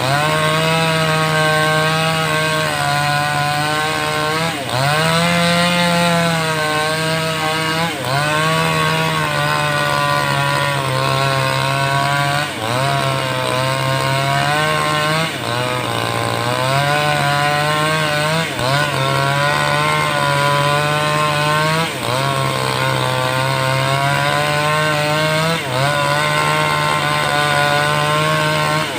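58cc two-stroke chainsaw (a 5800-type with a 22-inch bar) running at full throttle while ripping a teak log lengthwise along the grain. Its engine pitch sags briefly every three to four seconds and then climbs back.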